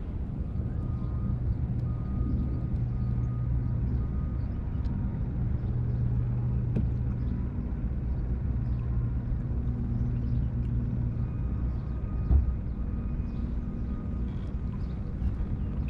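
Steady low motor hum, with faint scattered clicks and a single thump about twelve seconds in.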